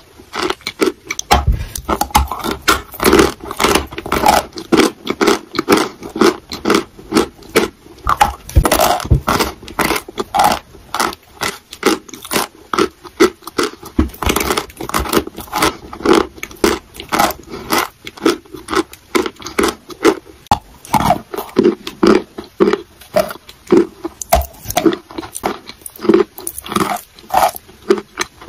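Close-miked chewing of chalk: quick, regular crunches of chalk being broken up between the teeth.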